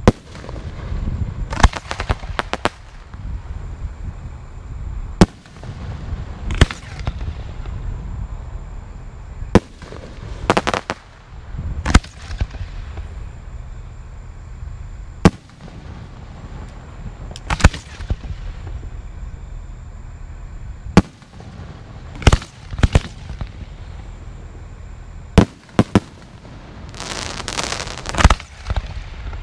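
Aerial fireworks shells bursting overhead: a sharp bang every few seconds, some in quick pairs or clusters. Near the end comes a denser run of pops as a big shell breaks into many glittering stars.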